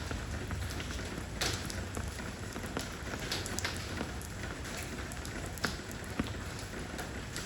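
Steady rain falling on stone stepping stones, an even hiss with scattered sharp drips and splats.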